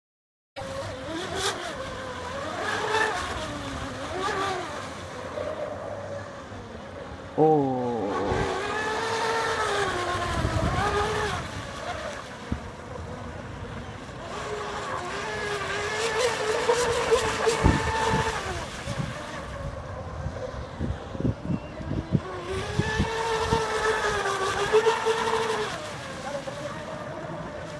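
RC boat's Leopard 4074 2200KV brushless motor on a 4S LiPo, driving the prop through a flex shaft, whining under load. Its pitch rises and falls with the throttle as the boat speeds up, slows and turns, over a steady hiss. The sound begins abruptly about half a second in.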